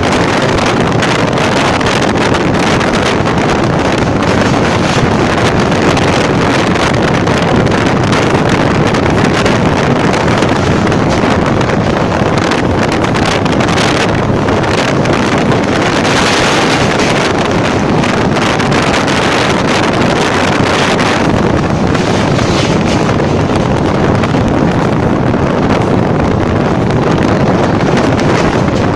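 Train running across a steel truss bridge, heard from an open door: a loud, steady rush of wheel-and-rail rumble mixed with heavy wind on the microphone.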